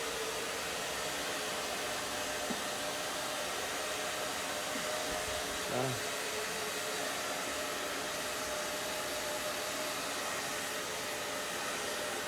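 Hair dryer blowing steadily, with a constant motor whine under the rush of air. About six seconds in comes one short rising cry.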